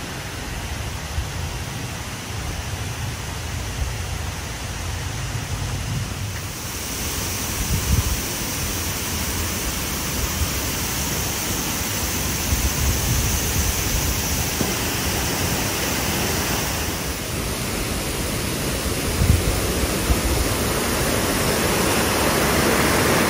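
Steady rush of falling and flowing water from a waterfall and stream, growing gradually louder toward the end.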